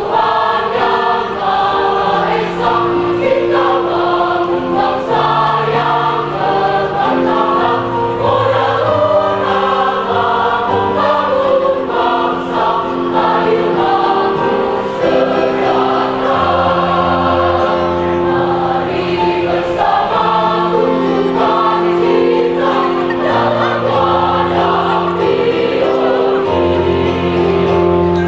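A large women's choir singing a march in several voice parts, with held low bass notes underneath.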